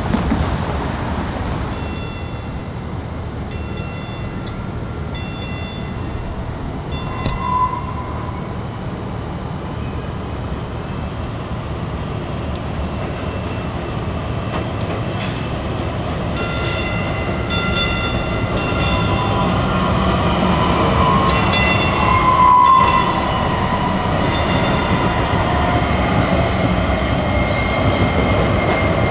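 DART Kinkisharyo light rail train running on street track, its rumble growing as it draws near and passes, while a warning bell dings over and over. Two brief louder tones stand out, one a few seconds in and one about two-thirds of the way through.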